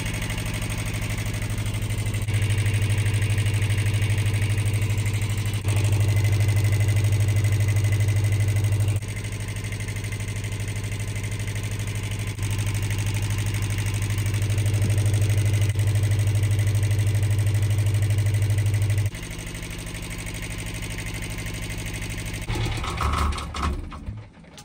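Narrowboat's marine diesel engine running steadily at idle, its level stepping up and down abruptly a few times. Near the end it shuts down and stops with a few uneven beats.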